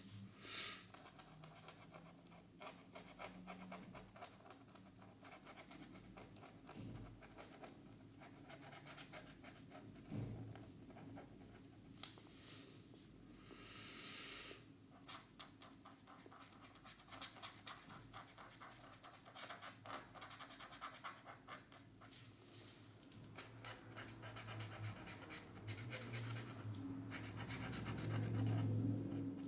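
Felt-tip markers scratching on paper in short, repeated colouring strokes, growing louder near the end.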